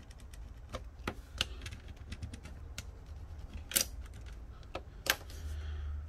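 Light, irregular clicks and scratches of a small tool picking leftover adhesive off the edge of a smartphone battery, over a low steady hum.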